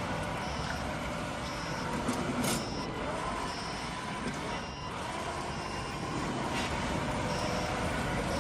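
Gasoline engine of a remote-control wheeled lawn mower running steadily, with a short high-pitched beep repeating about once a second and a brief burst of noise about two and a half seconds in.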